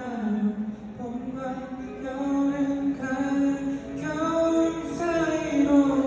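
Intro of a K-pop song played live through a concert hall's sound system: a melody of held notes moving from one to the next, slowly getting louder.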